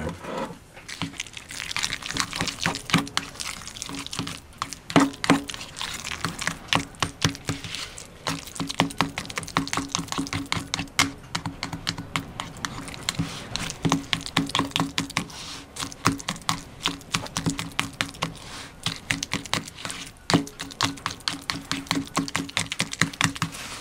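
Metal fork stirring and mashing guacamole in a plastic tub: a rapid, irregular run of clicks and scrapes as the tines hit the container's sides and bottom.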